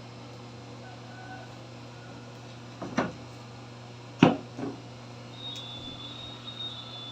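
A few sharp knocks, the loudest about four seconds in, over a steady low hum; a thin high steady tone starts a little past halfway.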